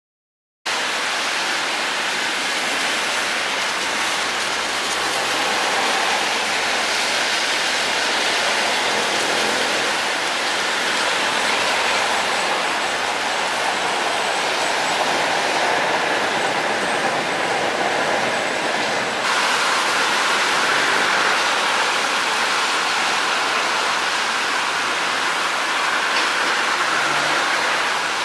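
Light rail trains running through a rainy street scene: a steady hiss of rain and tyres on wet road, with the rolling noise of the trains mixed in. The sound starts suddenly about half a second in and changes sharply about two-thirds of the way through.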